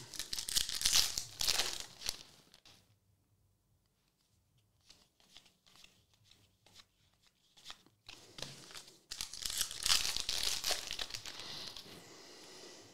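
Foil wrapper of a Topps NBL trading-card pack torn open and crinkled. It comes in two spells, for about the first two and a half seconds and again from about eight seconds in, with a quiet gap between.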